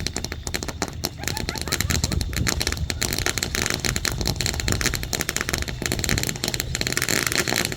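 A lit firework giving a dense, steady crackle of rapid small pops.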